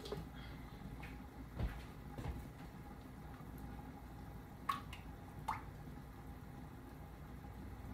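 A few light clinks and knocks of cookware being handled, two of them near the middle with a short ring, over a low steady hum.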